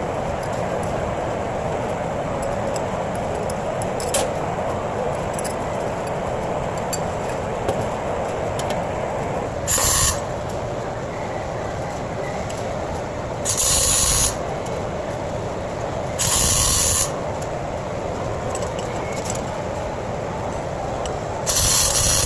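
Wire-feed welder tack-welding stainless steel pipe: four short bursts of arc noise, each under a second, the first about ten seconds in and the last at the very end, over a steady background noise.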